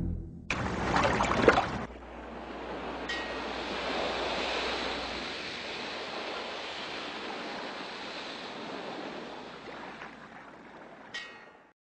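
Ocean surf washing in a steady hiss that swells and then slowly fades away. It opens with a loud crashing burst about half a second in, lasting just over a second.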